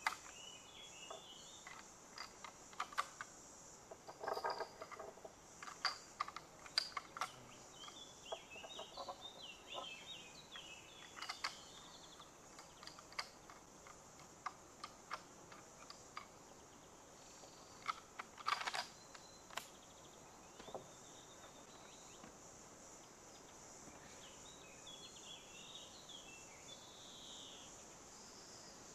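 Faint, scattered metallic clicks as cartridges are loaded into the action of a Winchester M1895 lever-action rifle. Birds chirp now and then, over a steady high insect drone.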